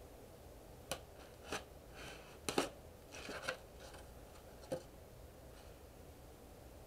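A few sharp clicks and short scraping rustles, about six in all, spread over the first five seconds, then quiet room tone.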